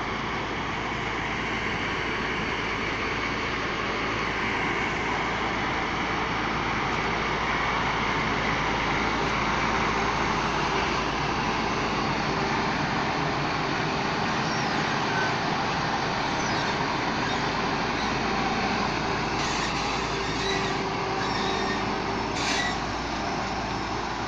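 A large vehicle running steadily, with a continuous engine drone and rattle and a few light clicks near the end.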